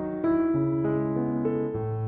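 Background piano music, calm sustained notes changing every fraction of a second.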